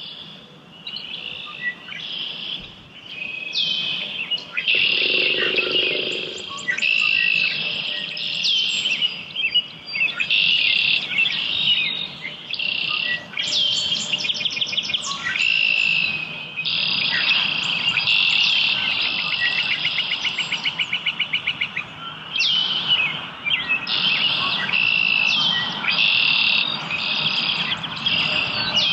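Several songbirds singing over one another in a morning chorus, with varied chirped and whistled phrases one after another. About two-thirds of the way through, one bird gives a long, rapid trill of evenly repeated notes.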